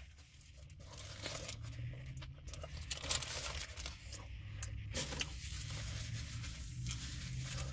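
Paper food wrapper crinkling and tearing as it is handled, in irregular bursts of rustling, over a steady low hum.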